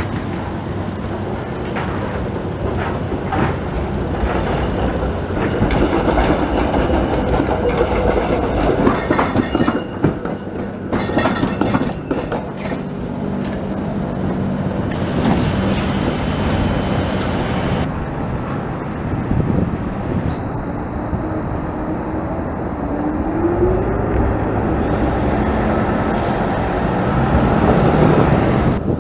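Toronto TTC CLRV streetcars running past on street track. Their steel wheels click and clatter over rail joints and crossings, with a steady city traffic background.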